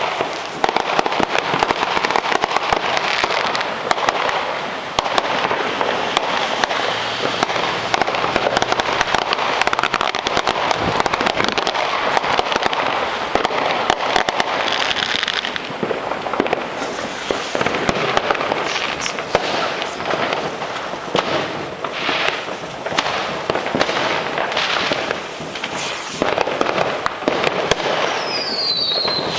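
Fireworks and firecrackers going off continuously: a dense crackle packed with sharp bangs and pops. A short falling whistle comes near the end.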